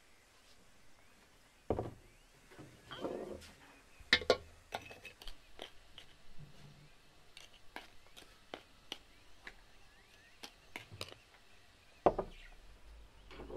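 Wooden spoon scooping and tapping against glass jars as they are filled, with jars knocked down on a wooden table: a scatter of irregular clicks and knocks, the loudest a few seconds in and again near the end.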